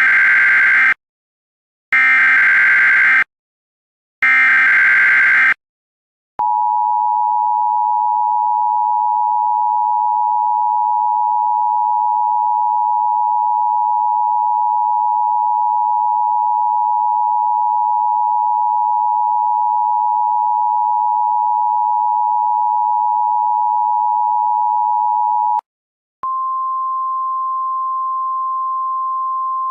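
Emergency Alert System tones: three short digital data bursts of the SAME header, each about a second long, then the two-tone EAS attention signal held steady for about nineteen seconds. Near the end it gives way to a single steady, slightly higher tone, like the NOAA Weather Radio warning tone.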